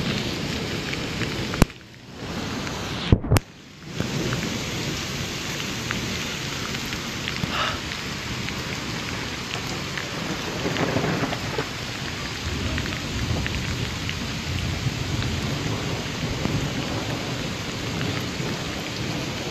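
Heavy rain falling steadily, a continuous hiss of downpour on a wet, flooded street. Two sharp clicks, each followed by a brief drop in the sound, come about two and three seconds in.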